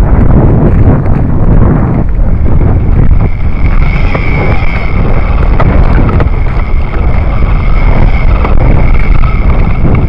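Loud wind rumble buffeting the Syma X5HC quadcopter's onboard camera microphone. From about two seconds in, a steady high whine sits above the rumble.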